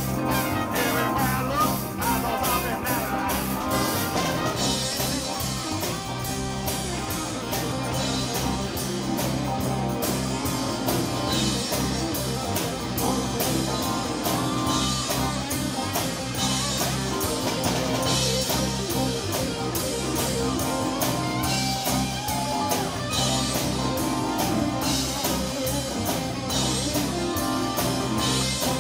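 Live band playing an instrumental stretch of a rock song: drum kit keeping a steady beat with cymbals, and guitar.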